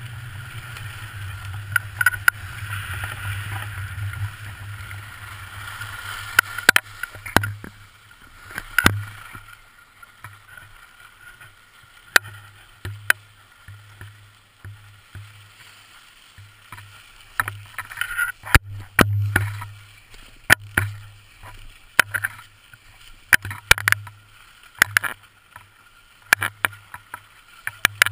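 Skis sliding and scraping over groomed snow, a steady hiss for the first several seconds that fades as the skier slows. Toward the end, sharp clicks and knocks, as from skis and poles.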